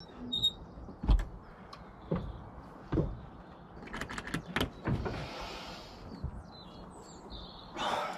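A boat's cabin door and its lock being handled: a series of knocks and metal clicks, quickening to several in a row about halfway, then a sliding scrape. Birds chirp faintly.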